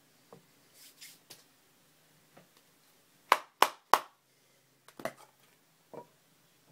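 Handling noises: three sharp taps in quick succession about halfway through, with softer rustling before them and a few light clicks after.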